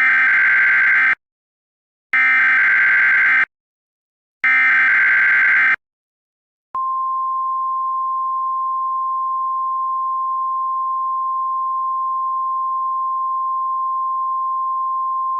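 Emergency Alert System SAME header: three short bursts of screechy digital data tones, each about a second long with a second's gap. About halfway through, the single steady 1050 Hz NOAA Weather Radio warning alarm tone sounds, which opens an emergency broadcast, here a tornado watch.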